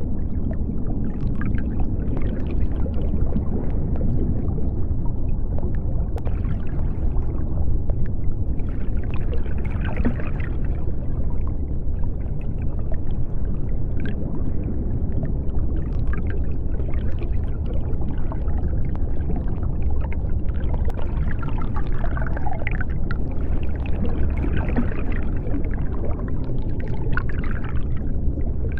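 Underwater ambience: a steady deep rumble of water, with faint scattered higher sounds throughout.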